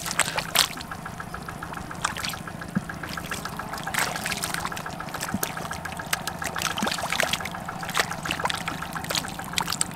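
Wet mud and shallow water splashing and squelching as feet wade and gloved hands dig through it, with irregular sharp splats. A low steady hum runs underneath.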